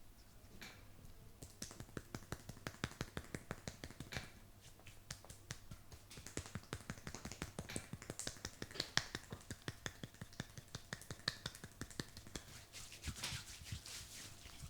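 Rapid series of sharp taps and snaps from a barber's hands working on the face and head during a massage, several a second, starting about a second and a half in.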